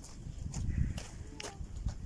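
Strong wind buffeting the microphone in uneven gusts, with a few light clicks and taps over it.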